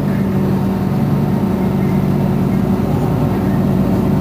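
Mercedes-Benz Citaro C2 city bus's rear-mounted engine idling steadily while the bus stands at a stop, a constant low hum with no revving.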